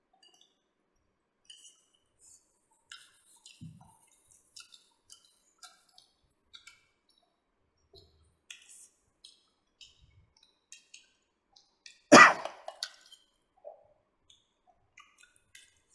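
Close-up eating sounds at a table: scattered small mouth clicks, chewing and smacking, and light clinks of cutlery, with one sudden loud noise about twelve seconds in.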